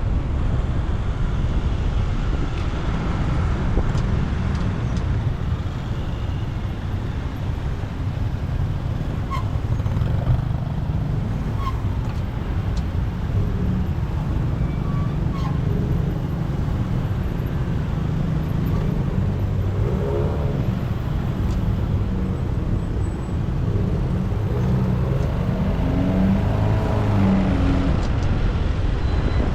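Motorcycle riding through city traffic: a steady low engine and road rumble, with surrounding vehicles. An engine note rises and falls a few times in the second half.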